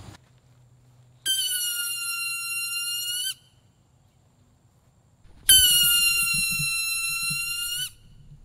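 Balloon-powered toy helicopters whistling loudly as the air rushes out of the balloon and drives the propeller up: two steady high-pitched whistles, each about two seconds long, with a few seconds of quiet between them, each cutting off abruptly as the balloon empties.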